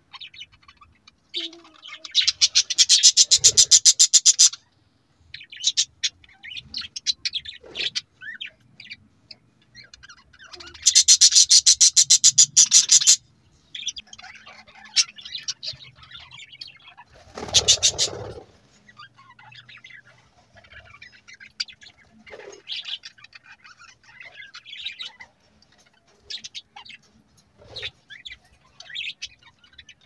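Budgerigars chirping and chattering, with two loud runs of rapid, evenly repeated chirps lasting about two seconds each, one near the start and one about eleven seconds in.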